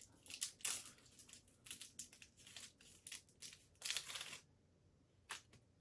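Plastic wrapper of a single Twix finger crinkling and tearing as it is unwrapped, in quick irregular crackles that stop about four and a half seconds in.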